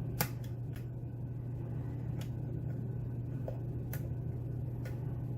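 Short hook lock pick working the pins of a pin-tumbler challenge lock, giving a handful of sharp, isolated metallic clicks as it lifts and sets pins; the loudest click comes just after the start. A steady low hum runs underneath.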